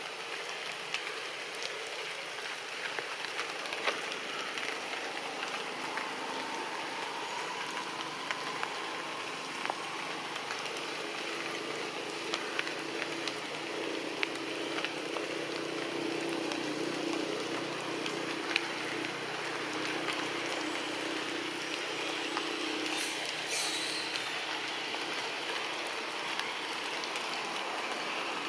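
Outdoor ambience: a steady hiss scattered with light crackles and clicks, with a low steady hum swelling in the middle and a short high buzz near the end.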